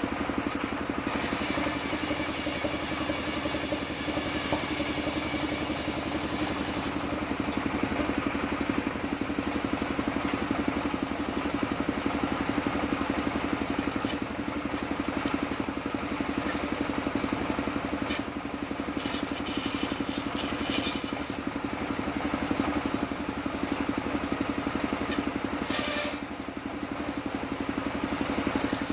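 Stationary engine running steadily, driving a table circular saw. From about one to seven seconds in, the blade cuts through waru wood with a high hiss. Scattered knocks and clatter of wood slabs come later.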